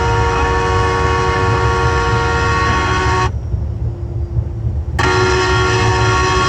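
Many vehicle horns blaring together in a steady, sustained chord over a low rumble. A little past three seconds in, most of the horns stop and one lower horn holds on alone; about a second and a half later they all sound again.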